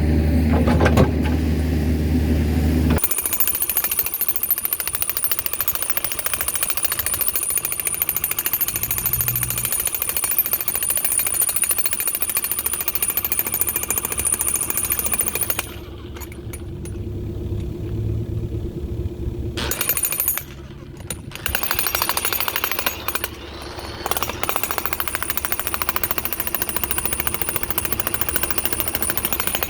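Jackhammer hammering at the old concrete flagpole footer in rapid, continuous blows. It starts about three seconds in, over a machine engine running, and stops briefly a few times, with the longest break near the middle.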